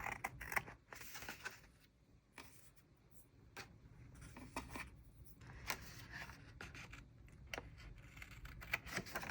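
Scissors snipping through a sticker sheet, with paper rustling: faint, scattered snips and rustles.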